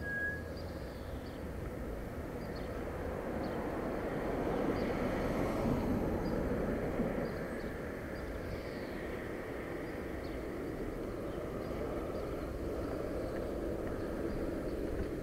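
Steady rushing of wind and road noise during a bicycle ride, swelling louder about five seconds in and easing off again.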